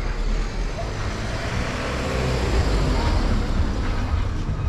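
A van driving past slowly on a narrow street, its engine running with tyre noise, getting louder towards the middle as it comes close.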